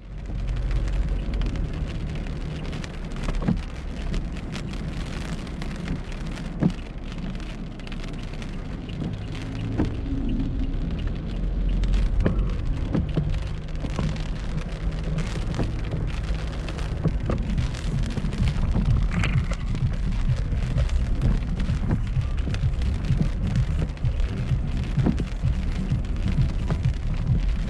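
Heavy typhoon rain and wind: a steady rush of rain with many sharp drop hits, over a constant low rumble.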